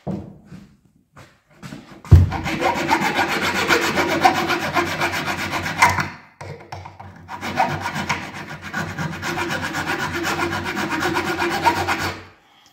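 Leatherman ARC multitool's file rasping on metal, taking metal off. The filing starts about two seconds in, pauses briefly around the middle, then goes on steadily until it stops just before the end.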